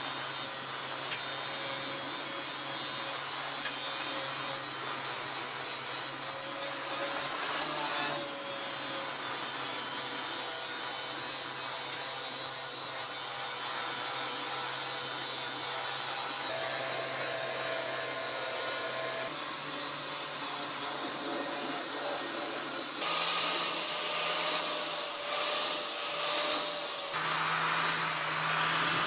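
Angle grinder with a flap disc grinding steel, running steadily under load. The motor's hum shifts pitch a few times as the pressure on the disc changes.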